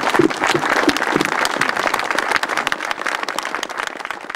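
A crowd applauding, many hands clapping together, the applause thinning and fading toward the end.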